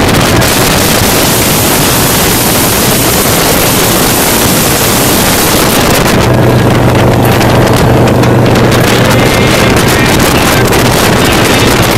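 Motorcycle engine running steadily at highway cruising speed with heavy wind noise on the microphone. The wind rush is strongest in the first half; after about six seconds the engine's low drone comes through more clearly.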